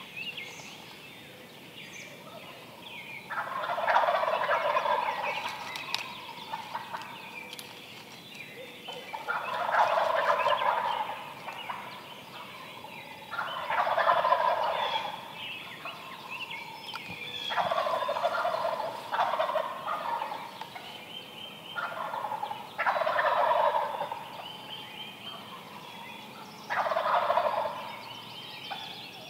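Wild turkey gobblers gobbling again and again, about seven rattling gobbles each lasting a second or two, coming every four or five seconds.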